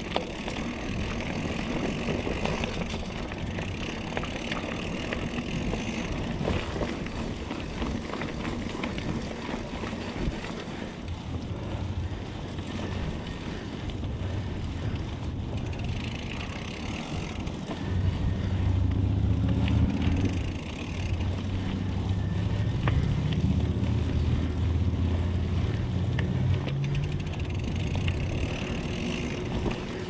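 Diamondback Atroz 3 mountain bike riding along a dirt singletrack: knobby tyres rolling on packed dirt and the bike rattling over the trail. A low rumble builds through the second half and is strongest from about two-thirds of the way in.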